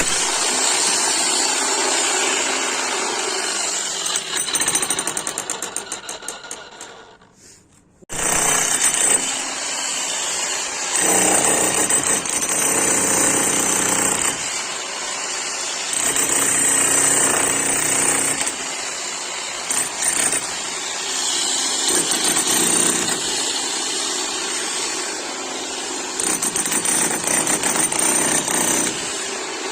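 11 kg electric demolition hammer running and hammering. About four seconds in it runs down in slowing blows and stops for about a second, then starts again abruptly and hammers on.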